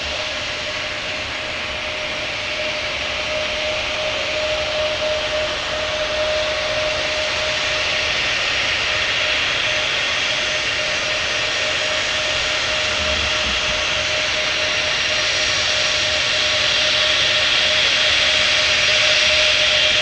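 Kawasaki P-1 maritime patrol aircraft taxiing, its four IHI F7-10 turbofan engines running with a steady whine and a rushing hiss. The sound grows louder as the aircraft comes closer, and the high hiss strengthens in the second half.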